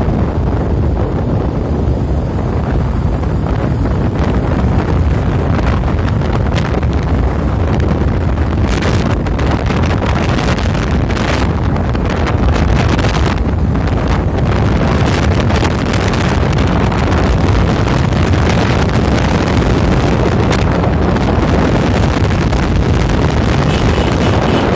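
Wind rushing over the microphone on a moving motorcycle, steady and loud with irregular gusts, with the motorcycle's engine running underneath at road speed.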